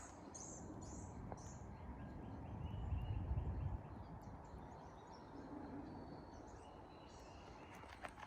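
Songbirds calling, with runs of short repeated chirps, over a faint outdoor background; a low rumble swells briefly about three seconds in.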